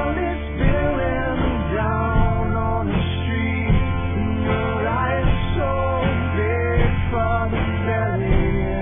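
Guitar-based rock song playing through a passage with no sung words: melody lines bending over a steady low bass note.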